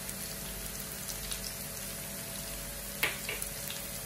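Sliced onions and green chillies frying gently in coconut oil, a soft steady sizzle with a few faint crackles. About three seconds in, a wooden spatula knocks against the pan.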